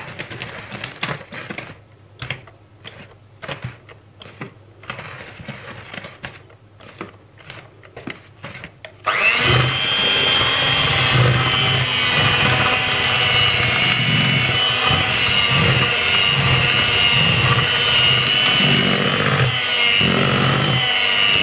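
Electric hand mixer beating flour mixture in a plastic bowl. A few light knocks and clicks come first, then about nine seconds in the mixer switches on suddenly and runs steadily with a high whine.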